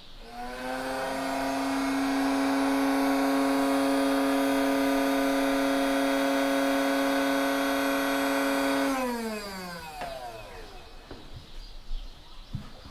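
A small electric motor spins up with a rising whine, runs at a steady pitch for about eight seconds, then winds down with a falling pitch and stops.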